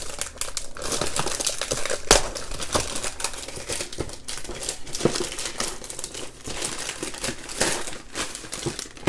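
Plastic gift wrapping crinkling and tearing as hands pull it open by hand, an irregular run of crackles with one sharp crack about two seconds in.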